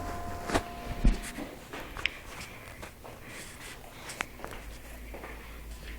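A few faint, scattered clicks and knocks over a low room hum, with the last note of the music dying away about a second in.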